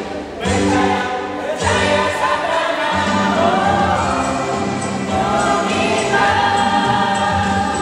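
Mixed choir of women and men singing a sacred song in several parts into microphones, with held notes and a brief break just after the start before the voices come back in.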